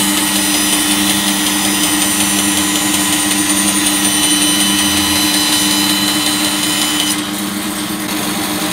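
Hammer N3800 bandsaw with its 2 hp motor running, its blade cutting through a block of wood at an angle, a steady hum under a strong cutting hiss. The hiss stops suddenly about seven seconds in as the cut finishes, and the saw runs on freely.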